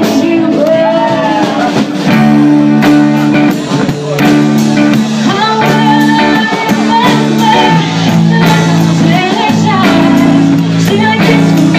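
Live band playing loudly: a woman singing lead over electric guitar and a steady rhythm section.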